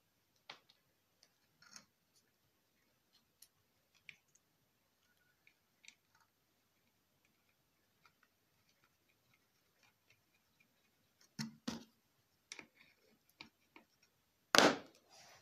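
Small scattered metal clicks and taps as oil feed pipes and banjo fittings are handled and fitted to a two-stroke motorcycle engine's oil pump. Two louder knocks come about eleven seconds in, and a sharp, loudest knock comes near the end.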